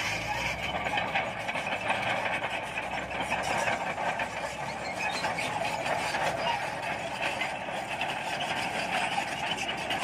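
Shantui SD22 crawler bulldozer's diesel engine running steadily as the machine moves on its steel tracks.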